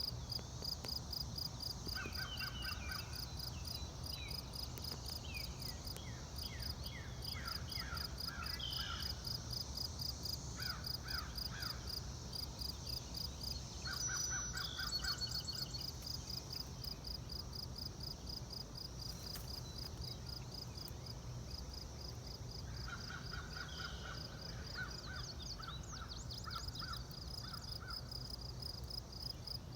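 Outdoor field ambience: insects chirping in a steady, even pulse throughout, with birds calling in several bouts of quick, repeated calls. A steady low rumble runs underneath.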